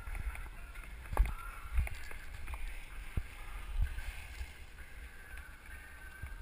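Skis sliding over packed snow, picked up by a GoPro worn by the skier, with a steady low rumble and several knocks, the loudest about a second in.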